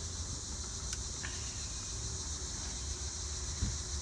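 Steady chorus of crickets, an even high-pitched drone, over a low rumble, with a couple of faint clicks about a second in and a soft knock near the end.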